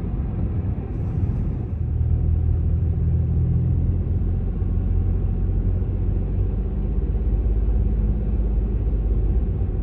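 Steady low engine and tyre rumble inside a car's cabin while driving along a city road.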